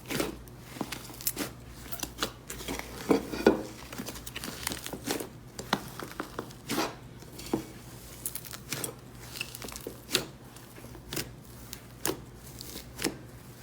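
Slime being squished and pressed, giving irregular sharp pops and crackles a few times a second, the loudest a few seconds in.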